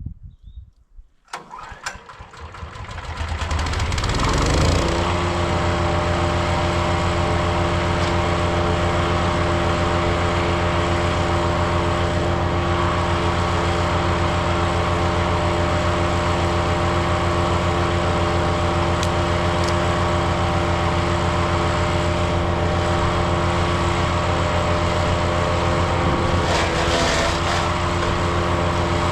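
Powerfist 420cc wood chipper's gas engine coming up to speed over about three seconds, then running steadily at full speed, with a brief rough patch near the end.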